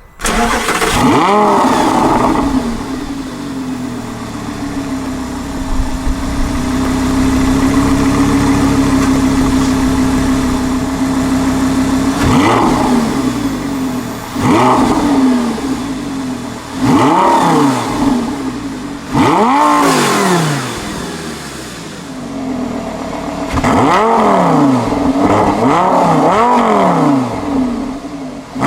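Lamborghini Gallardo LP560-4's 5.2-litre V10 exhaust, its valves open in Sport mode, revving hard. A steady held note runs for several seconds, then the pitch climbs and drops sharply again and again in quick bursts.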